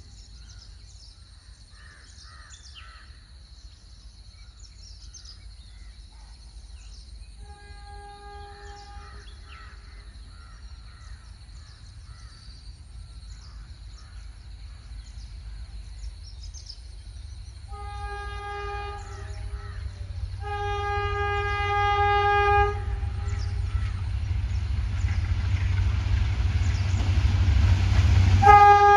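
Twin WDM3D diesel locomotives with ALCO 16-cylinder engines approach at speed at the head of a passenger train. Their low rumble grows steadily louder as they near. The locomotive horn sounds once about a quarter of the way in, then twice past the middle, the second a long blast, and again just at the end as the engines draw level.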